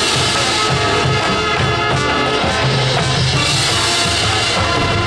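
Marching band playing its halftime show, brass and percussion together over a steady line of held low notes.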